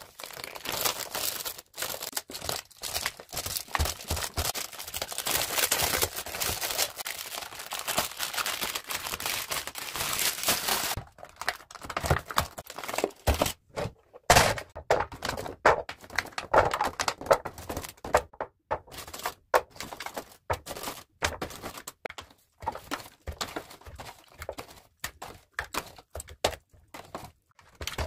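The plastic film and clear plastic tray of a store-bought vegetable tray crinkle and crackle densely as it is unwrapped, for about the first eleven seconds. After that come scattered taps and clunks as the plastic tray is handled and baby carrots and broccoli are moved into a clear serving bowl.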